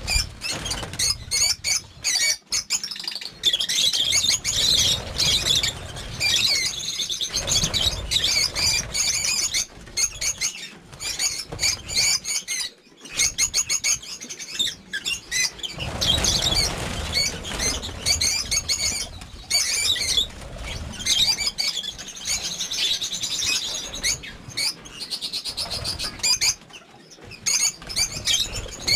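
Many lovebirds chirping without pause, with repeated wing flapping among them.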